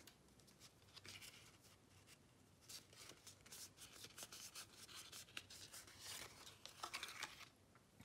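Faint rustling and rubbing of cardstock pieces being handled, with scattered light taps and scrapes of paper, busier from about three seconds in.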